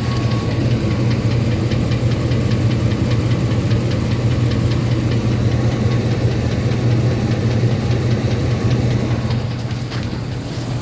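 2004 Ford F-150's 4.6-litre Triton V8 idling steadily with a fast, light ticking over the engine note. The owner cannot place the tick and has been told it is normal.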